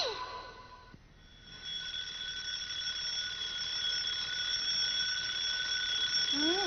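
The last of the music fades out in the first second. Then, about a second and a half in, an alarm clock starts ringing, a steady high electric-bell ring that keeps going. Near the end a short sliding voice-like sound comes in over it.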